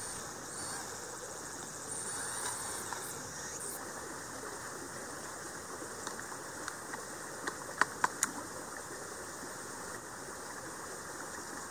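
Steady outdoor background hiss with a few faint high insect-like tones early on, broken by a handful of sharp clicks about two-thirds of the way through.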